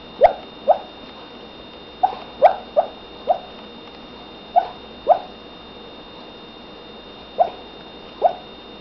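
Dog barking in her sleep: about ten short barks in irregular groups of two to four, with gaps of a second or two between the groups.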